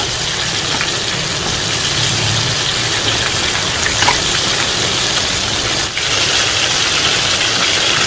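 Crumb-coated chicken thighs deep-frying in very hot oil in a steel wok: a loud, steady sizzle, with a few light clicks as metal tongs turn the pieces.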